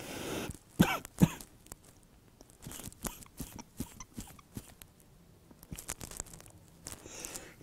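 A man weeping quietly into his hand: a heavy breath, then two sharp catches of breath about a second in, followed by sniffles and small wet mouth clicks, and a long shaky breath near the end.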